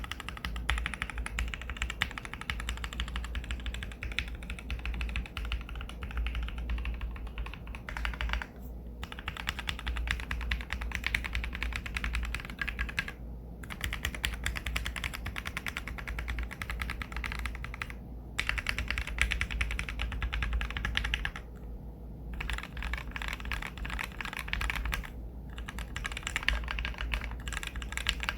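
Custom 60% mechanical keyboard with lubed Gateron KS-3X47 Black linear switches, a polycarbonate plate and PBT keycaps in an aluminium Tofu60 case, typed on quickly and continuously, broken by about five brief pauses.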